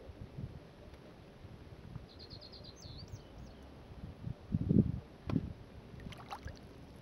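Low, irregular thumps and knocks from a small boat being handled and rocking on the water, loudest a little before the middle, with a sharp knock just after. About two seconds in, a bird gives a quick run of about six high chirps, and near the end there is a brief falling call.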